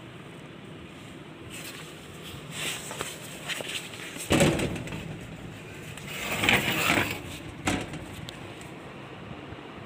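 Steady low hum inside a service elevator car, broken by two loud rubbing thumps, one a little before halfway and one about two-thirds through, then a single sharp click.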